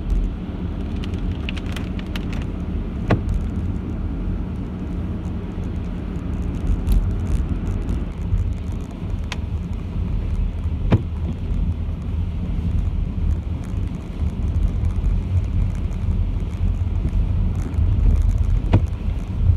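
Car cabin noise while driving in heavy rain: a steady low rumble of engine and wet road, with raindrops ticking on the windscreen and a few sharp knocks.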